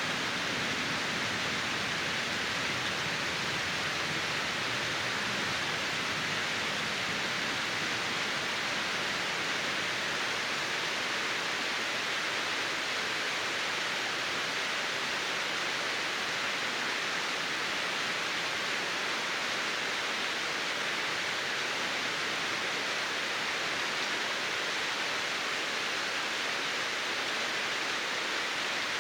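Water falling at an icy waterfall: a steady, even rush with no breaks.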